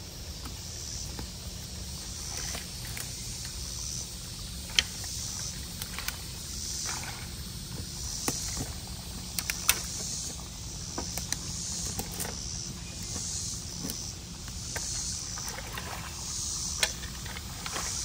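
Water sloshing and splashing as storm debris is pulled by hand from a blocked culvert, with several sharp knocks, the loudest about 5 and 10 seconds in. Underneath are a steady rush of water and a high hiss that swells about once a second.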